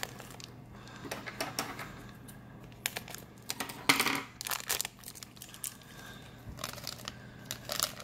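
A small shiny plastic blind-bag packet being torn open and crinkled by hand: scattered crinkles and sharp crackles, with a louder rustle about four seconds in.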